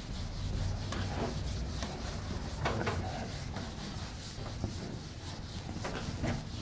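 Whiteboard eraser wiped back and forth across a whiteboard, a run of irregular swishing strokes over a low steady hum.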